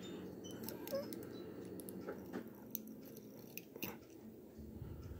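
Faint, scattered light clicks and taps of small metal lock parts being handled: pins and springs being taken out of a disassembled pin-tumbler lock core, over a low steady hum.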